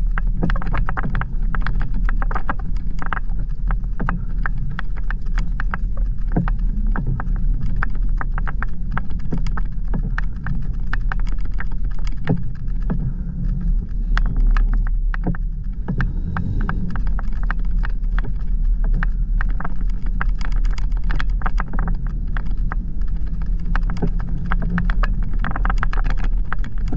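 Jeep engine running at low speed with a steady low rumble, under a continual clatter of knocks and rattles as the vehicle drives over a rough, snowy dirt track.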